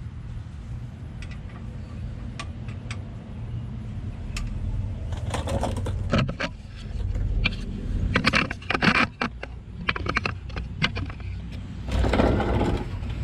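Mechanical work on the truck: irregular metallic clicks and knocks over a steady low hum, turning into dense runs of rapid clicking about five seconds in.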